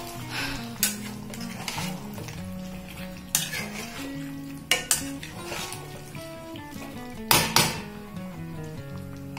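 A spatula scraping and knocking against a metal kadhai as chunks of pumpkin in a wet curry are stirred, in irregular strokes with a couple of louder scrapes near the end. Soft background music with held notes plays underneath.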